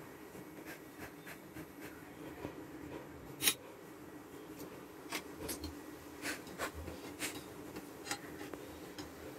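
Light, scattered clicks and taps of a metal ladle against a metal kadai as adhirasam dough is lowered into hot frying oil. The sharpest tap comes about three and a half seconds in, and a cluster of smaller ones follows, over a steady low hum.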